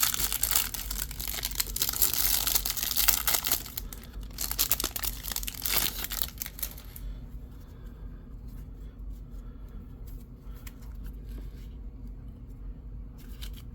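The wrapper of a Topps baseball card pack is torn open and crinkled, a loud dense crackling for about the first seven seconds. It then drops to quiet, with a few soft clicks as the cards are handled.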